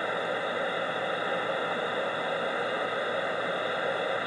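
Steady static hiss from a CB radio's speaker, with no station coming through.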